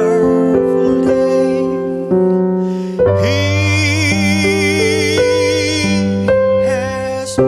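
Live song with electronic keyboard accompaniment playing sustained chords. A long note with a strong vibrato is held from about three seconds in to six seconds in.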